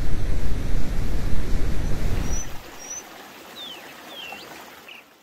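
A steady rushing noise, loud and deep for the first two and a half seconds, then softer, with a few short rising and falling chirps in the second half; it fades out at the end.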